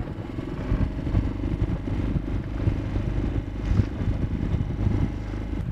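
Outboard motor on an inflatable boat running steadily: a low rumble with a faint even hum.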